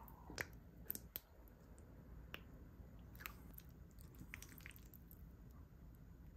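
Faint chewing, with scattered small wet mouth clicks and a few sharper ticks.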